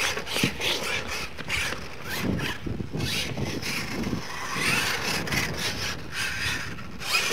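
Radio-controlled scale monster truck driving hard on a dirt track: its motor whines up and down as it accelerates, with tyres scrabbling in loose dirt and short knocks from the chassis and suspension over bumps.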